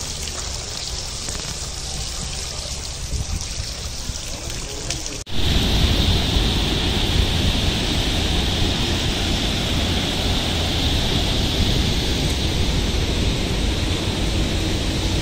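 Water trickling and splashing from a mosque's ablution fountain. About five seconds in, a cut brings a louder, steady outdoor rushing noise with wind rumbling on the microphone.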